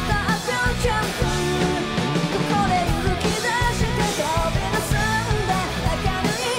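Live rock band playing at full tilt: distorted electric guitars, bass and drums with cymbals, under a female lead vocal.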